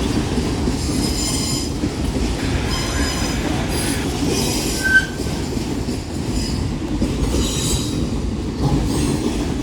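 Manifest freight train cars rolling past: a steady rumble of steel wheels on the rails, broken several times by brief high-pitched wheel squeals, with one short sharp squeak about halfway through.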